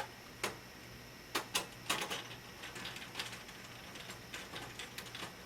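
Expansion cards being handled and pulled from an old AT computer: a run of scattered light clicks and knocks of metal and circuit boards, irregular, over a faint steady hum.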